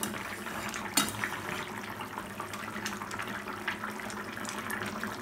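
Fish curry bubbling on the boil in a kadai, a steady patter of small pops and burbles, with a single sharp knock about a second in.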